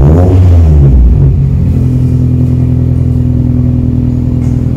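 Honda Fit GD's four-cylinder engine through a Skunk2 MegaPower aftermarket exhaust: one quick throttle blip, the pitch rising and falling back within about a second and a half, then settling back to a steady idle.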